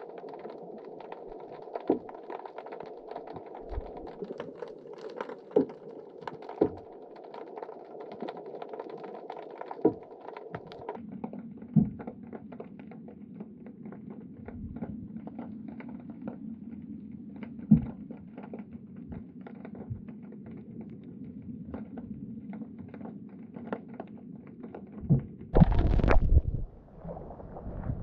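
Underwater sound picked up by a GoPro in its waterproof housing: a muffled hiss dotted with many sharp clicks and crackles, the hiss dropping lower about eleven seconds in. Near the end, a loud rush of water as the camera comes up out of the water.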